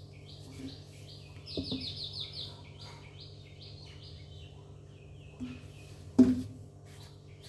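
Small bird chirping in quick series of short high notes, densest near the start, over a steady low hum. A sharp knock about six seconds in is the loudest sound, with fainter knocks earlier.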